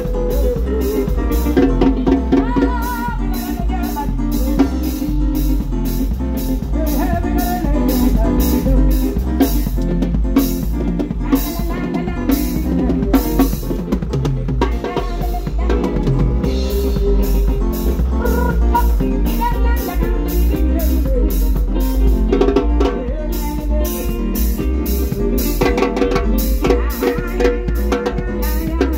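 Live band playing: a drum kit with a steady stream of cymbal and snare strokes and an electric bass underneath, with a woman singing through a microphone and PA.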